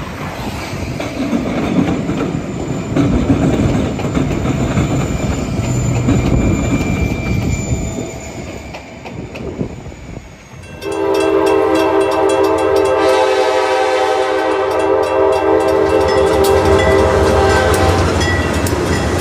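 Diesel locomotives rumbling as they move through a rail yard, with wind on the microphone. About eleven seconds in, a loud locomotive chord horn sounds in one long blast to the end.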